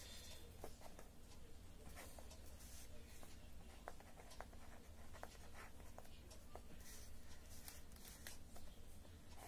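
Faint scratching of a pen writing on paper, in short strokes with a few light ticks.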